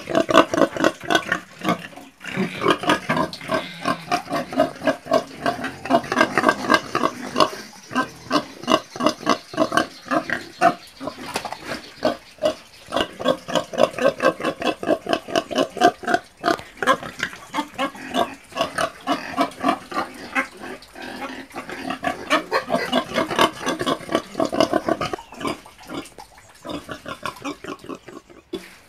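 Pigs grunting continuously, a rapid run of short grunts several a second with only brief pauses.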